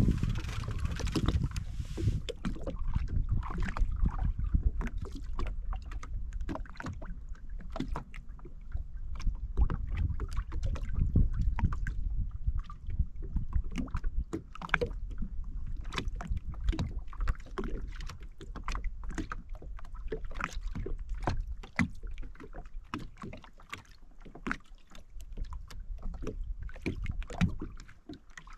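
Small waves lapping and slapping against the hull of a drifting Sea-Doo jet ski, in many short, irregular splashes over a steady low rumble.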